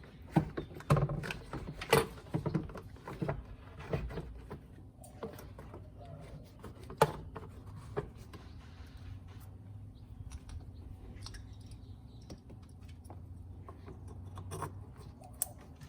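Scattered clicks and knocks of parts and hand tools being handled, busiest in the first few seconds, with a single sharp click about seven seconds in, over a steady low hum.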